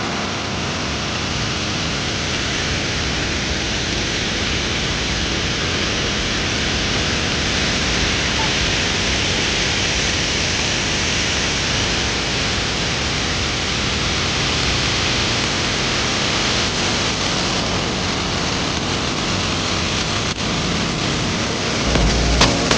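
Steady, loud rushing roar of Victoria Falls' water, with a short low rumble and a knock near the end.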